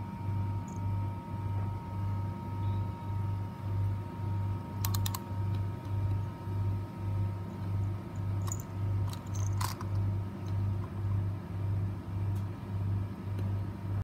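A few light clicks and taps of a cat's paw and claws on a plastic toy bird, in small clusters about five seconds in and again around nine to ten seconds. Under them runs a low hum that pulses evenly about one and a half times a second.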